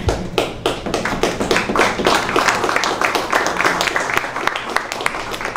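Applause from a small audience: a few separate hand claps at first, quickly filling in to steady clapping.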